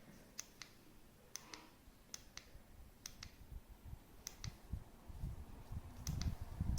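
Light, sharp clicks in pairs, each pair about a fifth of a second apart, coming roughly once a second, with faint low thumps that grow toward the end.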